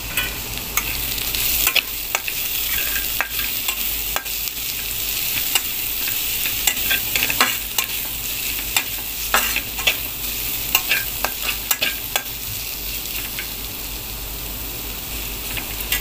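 Chopped vegetables sizzling in hot oil in a pan while a spatula stirs them, scraping and clicking against the pan at irregular moments over a steady sizzle.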